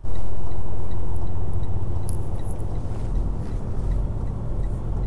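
Steady low rumble of a Freightliner Cascadia semi-truck heard inside the cab, with a faint regular ticking over it.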